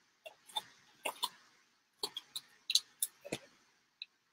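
Stiff plastic window sheet being bent and creased along its score lines: about a dozen irregular sharp clicks and crackles.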